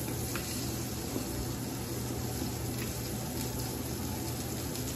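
Beef roast searing in an oiled skillet on the stove: a steady sizzle.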